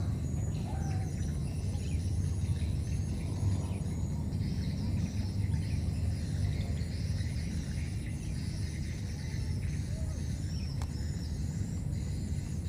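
Outdoor natural ambience: many quick high chirps from insects and birds, with a steady thin high-pitched tone, over a constant low rumble.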